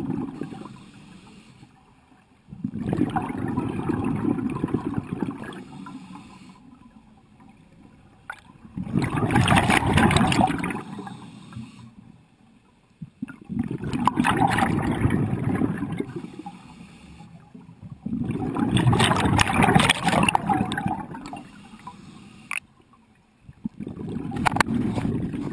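A scuba diver breathing through a regulator underwater: bursts of exhaled bubbles gurgling and rushing past the camera, each two to three seconds long and coming about every five seconds.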